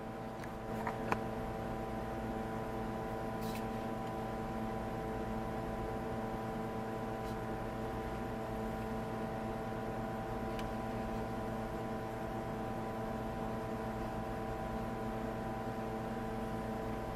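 Steady hum of running workshop machinery, made of several steady tones, with a few light clicks in the first second or two.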